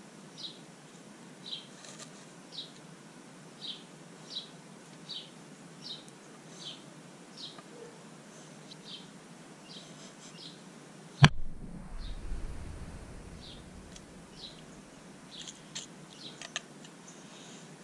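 A bird repeating one short high chirp, about one every three-quarters of a second. About eleven seconds in, a single sharp knock with a low rumble after it is the loudest sound, and a few light clicks come near the end.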